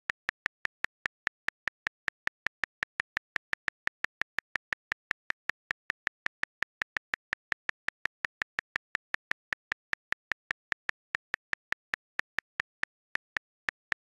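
iPhone Calculator app key-click sound repeating as one button is tapped again and again: short, sharp clicks at about five a second, with a brief pause near the end.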